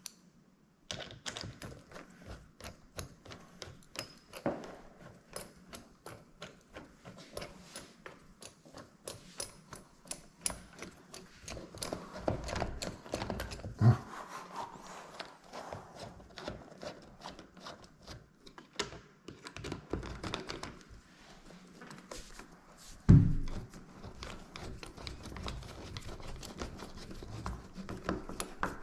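A steady run of quick clicks and light taps, a few each second, with two loud, heavy thumps about 14 seconds and 23 seconds in.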